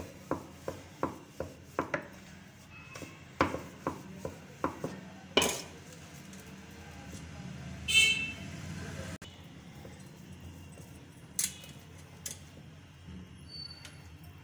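Wooden rolling pin knocking on a wooden chakla board as paratha dough is rolled out: quick clacks about three a second at first, then scattered knocks. Near the middle a brief, loud, high ringing tone stands out as the loudest sound.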